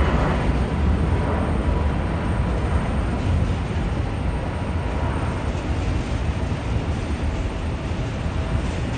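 Boeing 777-200ER's Rolls-Royce Trent 892 turbofans at takeoff power, a deep steady rumble from the climbing airliner that slowly fades as it pulls away.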